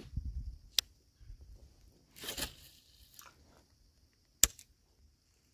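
Handling noises: low bumps at first, a sharp click about a second in, a short scraping rush in the middle, and a louder sharp click near the end.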